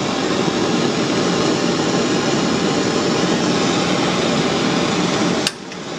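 Brass blow lamp flame hissing steadily as it heats an aluminium gearbox casing, expanding the bearing housings so the new ball bearings drop in. Near the end a sharp click, and the hiss drops away.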